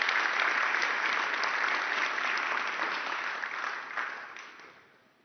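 Audience applause, steady at first, then thinning about four seconds in and dying away near the end.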